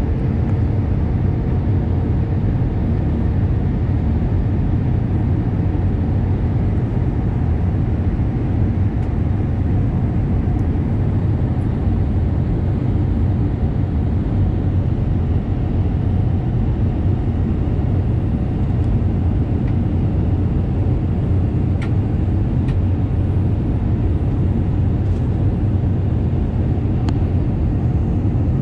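Steady low rumble and air noise of an airliner flight deck in flight, with a few faint clicks in the second half.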